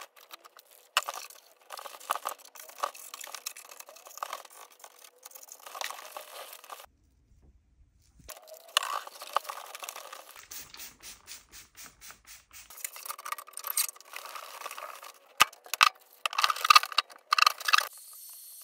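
Microfibre cloth wiping and rubbing over a dusty plastic PC case: uneven scraping, scuffing strokes with small clicks and knocks from handling the case.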